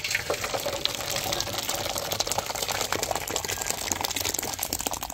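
Thick rice kheer poured in a heavy stream from a cooking pot into a wide metal basin: steady splashing with many quick little splats.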